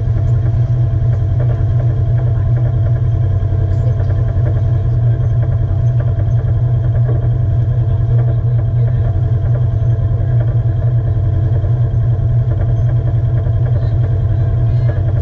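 Side-by-side UTV engine idling steadily close by, an unchanging low rumble with a steady hum over it.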